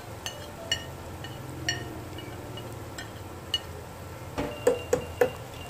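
A spoon clinking and scraping against a ceramic plate as chopped red chilies are scraped off it, giving several sharp clinks with brief ringing. A cluster of louder knocks comes near the end, over a low steady hum.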